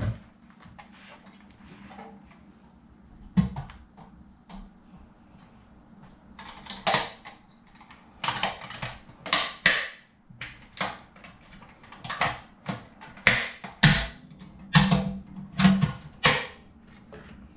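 Stainless steel Spike Flex fermenter lid being fitted and its rim latches fastened: a quick run of sharp metallic clacks and scrapes, with a few dull thuds near the end as the lid is pressed down.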